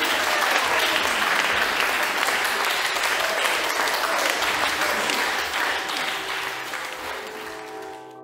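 Loud audience applause and cheering that fades away over the last couple of seconds, as soft held music notes come in.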